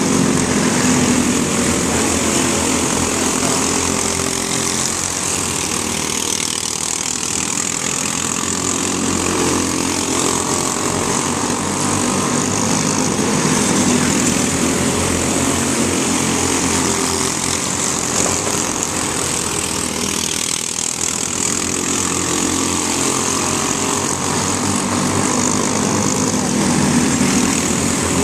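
Several microstock race cars' small engines running hard as they race together, the combined engine note swelling and easing slightly as the pack circles the track.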